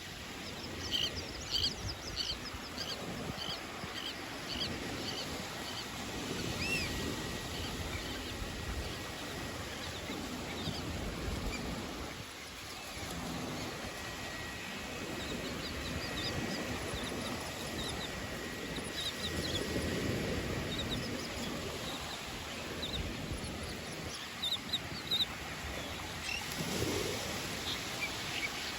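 A flock of birds calling in runs of short, high chirps, several a second, over a steady background noise of wind and surf. The calls come in bursts: near the start, around the middle and again shortly before the end.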